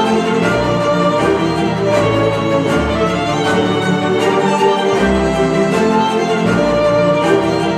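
Cinematic classical music with bowed strings (violins and cello) over a pulsing bass, played back through a pair of Polk Audio Reserve R200 bookshelf speakers.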